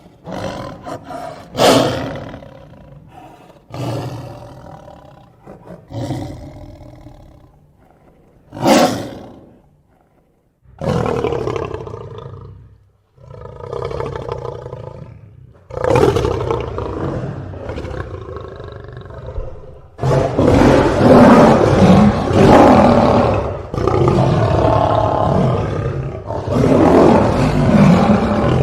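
Tiger roaring: a series of separate roars with short gaps, then long roars following one another almost without a break through the last third.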